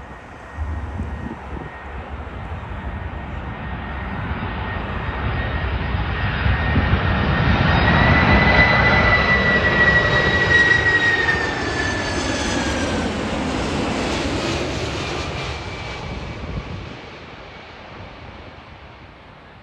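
Jet airliner passing overhead: the engine noise swells to a peak about halfway through, then fades. A high whine drops slightly in pitch as the aircraft goes by.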